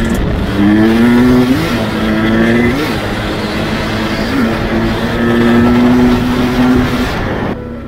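Husqvarna TE300i two-stroke enduro engine under way, pulling up through the gears. Its pitch climbs and drops back three times, then holds steady. The engine sound falls away shortly before the end.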